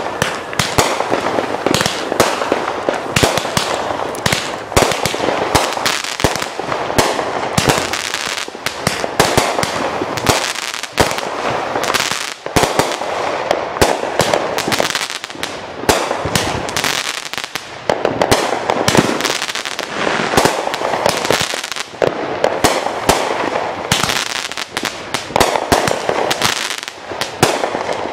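Consumer fireworks show: aerial bursts going off in a continuous barrage of rapid, overlapping bangs and crackling, with no pause.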